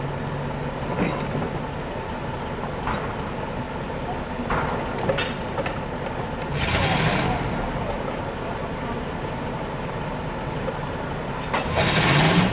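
Steam logging donkey working a log-loading line: a steady low mechanical run, with a loud hissing burst about six seconds in and another near the end. The second burst comes with a rising engine note.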